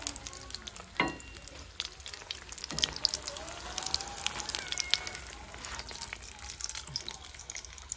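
Besan-battered potato patties (aloo chop) deep-frying in hot oil in a kadhai: steady sizzling with fine crackling. There are two louder knocks, about one second in and again near three seconds, as a perforated slotted spoon works the patties in the pan.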